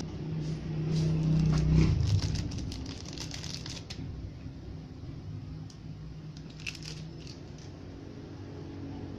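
Crinkling of a small plastic parts bag and light clicks of handling, most of it in the first four seconds, with a few faint clicks later. Under it, a low rumble is loudest in the first two seconds, then fades.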